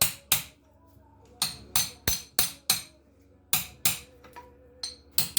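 Hammer blows on a stuck connecting-rod bolt of a seized 1963 Austin Healey six-cylinder engine: sharp metal-on-metal strikes, each with a brief ringing tone, about three a second in short runs, with two lighter taps near the end. The bolt is not budging.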